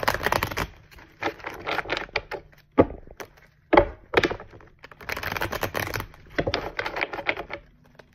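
A deck of tarot cards being shuffled by hand: several bursts of rapid, crisp card clicks, with two sharper single taps in the middle.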